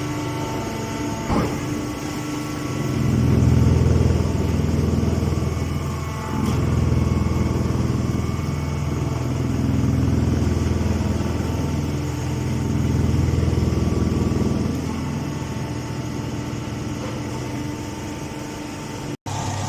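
A baling machine's engine running, its sound swelling louder and easing back several times as it works. There is one sharp click about a second in.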